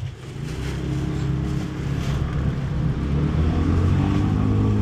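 A motor vehicle's engine running close by, a steady low hum that grows louder until near the end.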